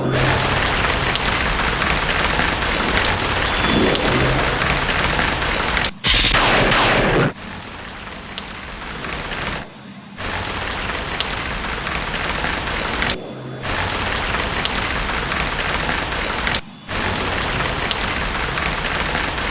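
Steady heavy rain with a loud thunderclap about six seconds in, lasting just over a second. The rain breaks off abruptly for a split second three times and comes straight back.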